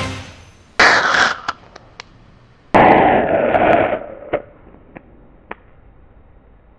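Homemade miniature cannon for a ship model going off: two sudden loud bursts of noise about two seconds apart, the second lasting about a second and dying away. A few sharp pops follow.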